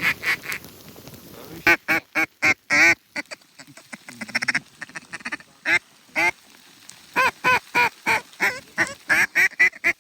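Ducks quacking: a short run of quacks about two seconds in and a longer, evenly paced run of about ten near the end.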